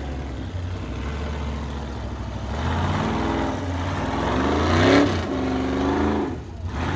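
Ultra4 rock-racing car's engine revving under load on a boulder climb: the pitch rises over about two seconds to its loudest peak about five seconds in, holds high briefly, then drops off.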